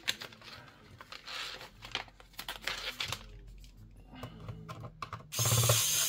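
Paper crinkling and small clicks as laptop screws are pushed through a paper screw-layout template. About five seconds in, a cordless electric precision screwdriver starts running with a steady whir.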